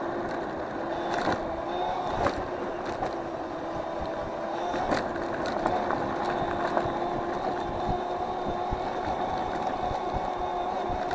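Electric scooter motor whining at a steady pitch while riding, with scattered clicks and knocks from the scooter going over the road surface.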